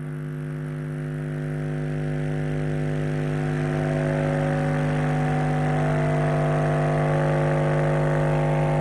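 Bare subwoofer driver, powered by a TPA3116D2 class-D amplifier board, playing a steady low test tone from a function generator with a buzzy edge. It grows steadily louder as the volume is turned up, and from about halfway through the buzz gets brighter. It cuts off abruptly at the end: the host is pushing the amp into overcurrent protection with a 2.5 ohm load.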